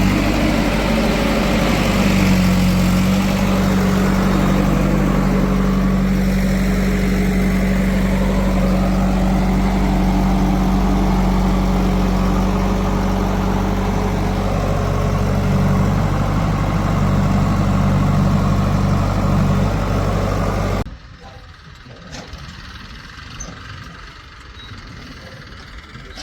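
Diesel engine of heavy farm machinery running steadily at a constant speed, then cutting off suddenly near the end, leaving a much quieter background with a few faint knocks.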